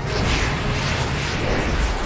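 Movie soundtrack: a loud rushing, rumbling sound effect of the Earth being spun backwards, with orchestral score faintly underneath.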